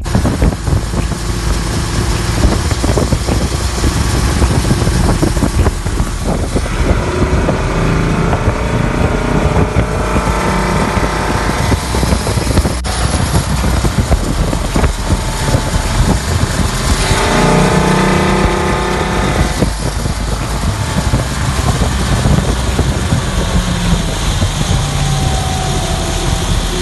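Volvo Penta GSi V8 sterndrive engine running hard with the boat under way at speed, the wake rushing and wind buffeting the microphone.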